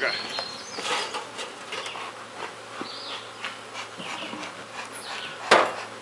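Honeybees buzzing around opened hives, with scattered knocks and scrapes of wooden hive boxes and frames being handled. A single sharp thump about five and a half seconds in is the loudest sound.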